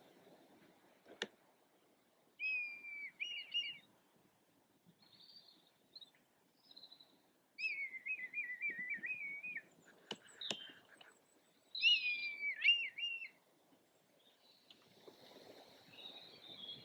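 Red kite calling during display: three wavering, whistled calls, the middle one longest with a rapid quaver, and a couple of sharp clicks among them.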